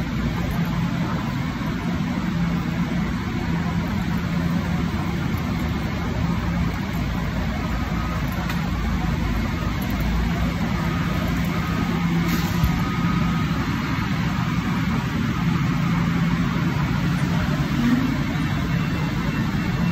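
Steady low mechanical rumble with a constant droning hum, unchanging throughout.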